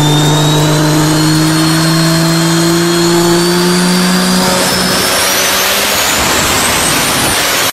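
A loud, engine-like drone over a heavy hiss, its pitch rising slowly, that cuts off suddenly at the end.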